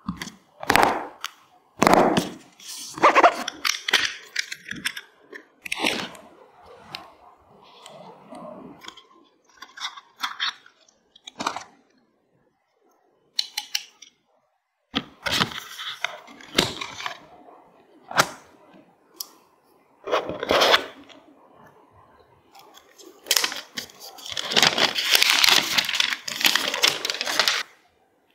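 Hands unboxing a smartphone: a cardboard box and its inserts slid, lifted and set down in sharp taps, scrapes and crackles, with short silences between. A clear plastic phone case is handled. About three-quarters of the way through comes a longer rustling stretch of packaging.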